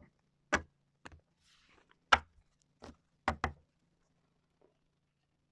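A stack of oracle cards picked up from a table and tapped square: about six sharp knocks in the first three and a half seconds, then quiet.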